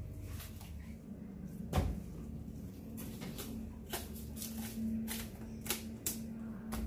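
Irregular knocks and clicks from handling food and utensils during cooking preparation, roughly two a second, the loudest about two seconds in, over a faint steady hum.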